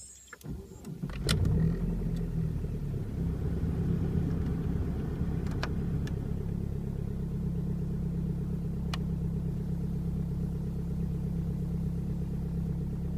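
A Volkswagen Passat 1.9 TDI four-cylinder turbodiesel is cranked for about a second and catches, then idles steadily after a cold start at −9 °C with the glow plugs having just finished.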